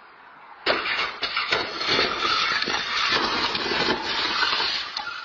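A car crash: a sudden loud impact under a second in, then several seconds of crunching and clattering debris with further knocks, dying away near the end.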